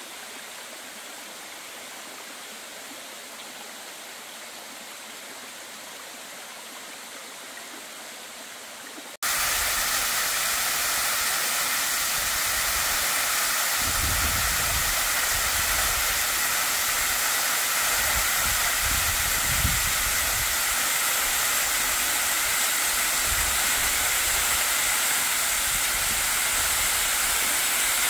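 Waimoku Falls, a tall waterfall plunging into a rocky pool: steady rushing, splashing water. About nine seconds in it becomes suddenly much louder and closer, with irregular low rumbling under the hiss.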